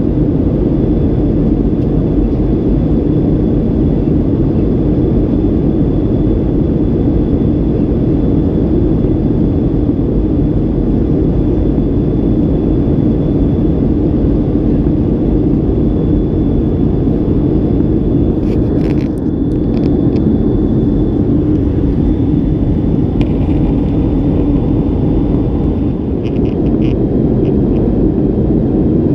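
Steady cabin noise of a Boeing 737-800 in cruise: a loud, even low rumble of airflow and its CFM56-7B turbofan engines, with a faint high whine. A few faint ticks come about two-thirds of the way through and again near the end.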